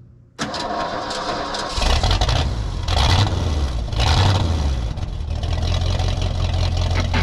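Wood-Mizer LT35 portable band sawmill running, its engine coming up in speed about two seconds in, with a noisy mechanical rush over the engine.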